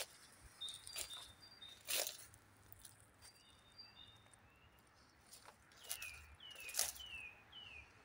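Small songbirds calling faintly: short notes that slide down in pitch repeat many times from about three seconds in, with an occasional steady higher note. Several short sharp crackles, about a second apart, are the loudest sounds.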